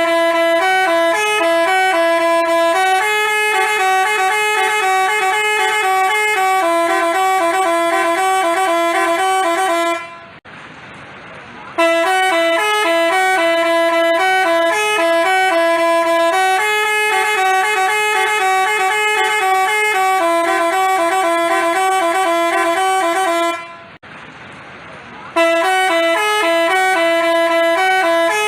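Telolet basuri musical bus horn playing a loud, repeating melody of changing notes in long phrases. It breaks off twice for about a second and a half, leaving quieter background noise, then starts the tune again.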